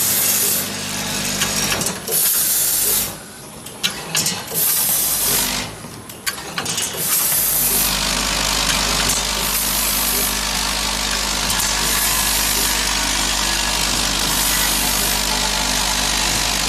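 Doypack powder packing machine running: a steady mechanical hum with short bursts of hiss recurring about every second and a half as the machine cycles. The sound dips twice in the first seven seconds.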